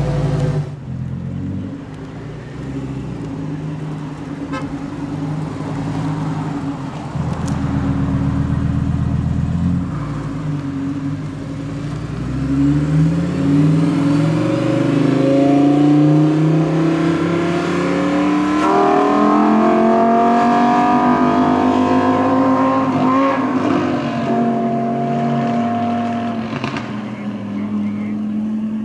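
Supercar engines running and revving as cars pull away, steady at first; from about twelve seconds in an engine's pitch climbs as a car accelerates, then engines run on at a higher, steady pitch until the sound drops away sharply at the end.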